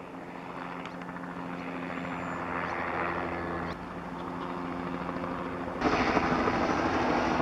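Helicopter with a pesticide spray boom flying low, its rotor and engine running steadily, getting louder about three-quarters of the way through.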